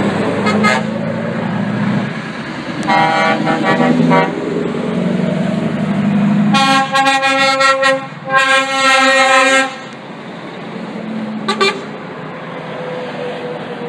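Truck horns sounding as a procession of truck tractor units drives past: a few short toots early on, two long blasts of over a second each in the middle, and one short toot near the end. Underneath runs the steady drone of the truck engines going by.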